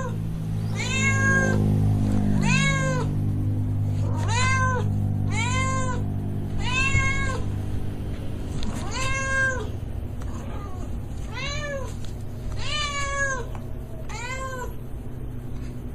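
A cat meowing over and over, about ten meows roughly a second and a half apart, each one rising and then falling in pitch.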